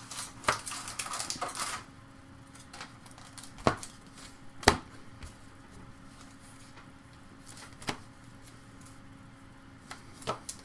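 A stack of trading cards handled and sorted by hand: the card stock slides and rustles for the first couple of seconds, then a few sharp single clicks of cards knocking together.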